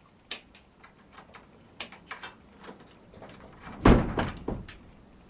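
Scattered light clicks of hand tools and sockets being handled. About four seconds in comes a loud, brief low rumble of wind buffeting the microphone.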